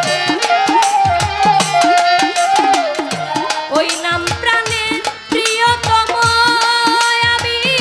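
Instrumental interlude of a Baul song: a bowed violin plays a wavering, ornamented melody over a hand drum whose low strokes slide down in pitch, about two strokes a second.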